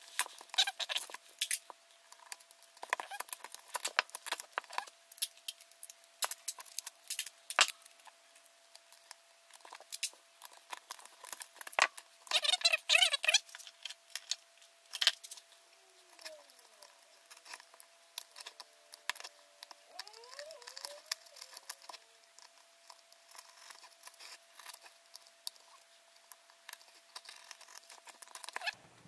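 Duct tape being pulled off the roll, torn and pressed down by hand: a long run of crackling, crinkling and sticky peeling sounds, with louder ripping about halfway through, over a faint steady tone.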